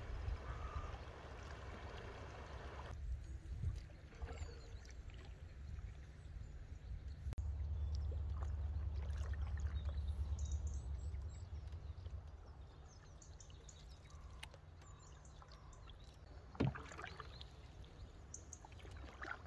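Canoe paddles dipping and pulling through the water, with water rushing over shallow riffles at first, giving way to calmer water after about three seconds. A low rumble comes and goes in the middle, and a sharp knock sounds near the end.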